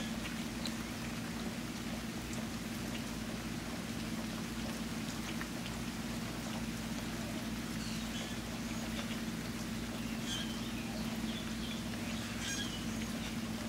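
Steady rain falling, with a steady low hum underneath. A few short high chirps or squeaks come through in the second half.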